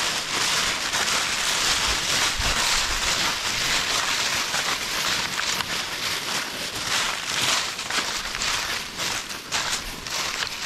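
Footsteps of several people walking through thick dry leaf litter, the leaves crunching and crackling underfoot in a steady, dense rustle.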